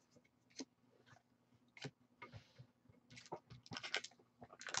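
Faint handling of Magic: The Gathering cards: a few scattered light taps and slides, then crinkling of a foil booster pack wrapper starting about three seconds in.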